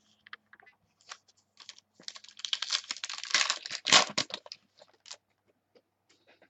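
Trading cards and their plastic packaging being handled: a run of crinkles and small clicks that grows denser and louder in the middle, then thins out.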